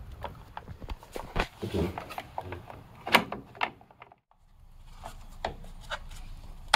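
Scattered clicks, knocks and rubbing as an LED headlight and its wiring are handled and pushed into a Jeep's headlight bucket. The sound drops out briefly about four seconds in.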